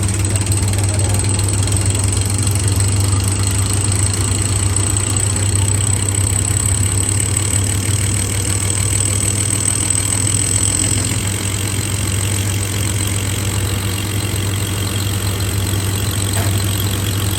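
Bedford truck's diesel engine idling steadily, with a thin high whine over it that fades about eleven seconds in.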